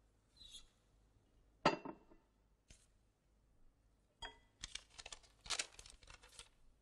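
A single sharp clink of glassware, then from about four seconds in the crackling rustle of a crumpled sheet of notebook paper being handled and unfolded, in several short bursts.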